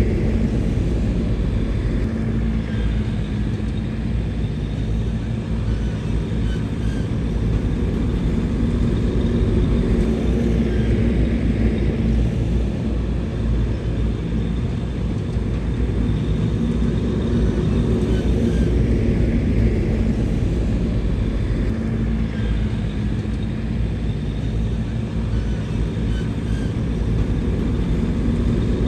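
Bulldozer's diesel engine running steadily with a deep, even drone.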